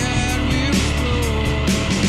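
Grunge rock band playing: distorted electric guitar, bass and drums with a steady beat.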